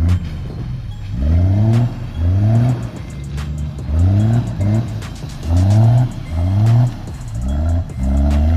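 Toyota Land Cruiser 70-series diesel engine revved in short repeated bursts while the truck churns through mud, each burst rising in pitch, about seven in all, with lower running between them. Background music plays underneath.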